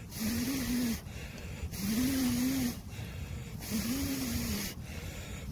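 A person blowing hard on smouldering embers to rekindle a campfire that has just gone out: three long breaths, each with a low voiced hum, about two seconds apart.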